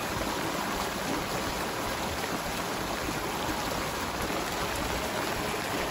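Muddy storm runoff gushing along a narrow concrete drain channel that is running full, a steady rushing sound like a small river.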